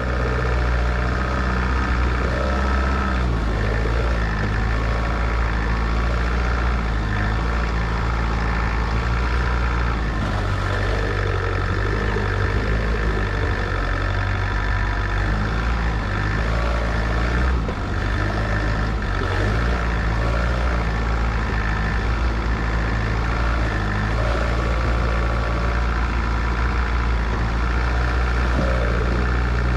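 A vehicle engine running steadily, a low drone whose pitch shifts a few times.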